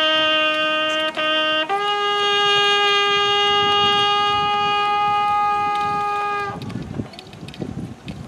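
A horn sounding a ceremonial call. One low note is held about a second and a half, the same note comes again briefly, then a higher note is held about five seconds before it stops.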